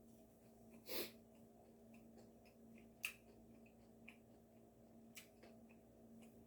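Quiet room with a low steady hum; a short sniff about a second in, then a sharp click and a few fainter small clicks.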